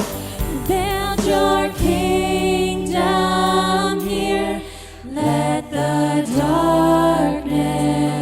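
Music: a worship song sung by several voices in long held notes that glide from one note to the next, over low sustained bass notes.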